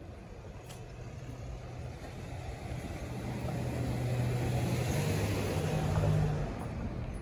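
A car driving past nearby: its engine hum and tyre noise grow louder over a few seconds, peak about six seconds in, then fade.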